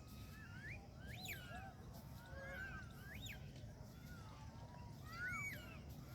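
Several birds calling over one another: short whistled chirps that sweep up and down in pitch, the loudest about a second in, around three seconds in and near five seconds in.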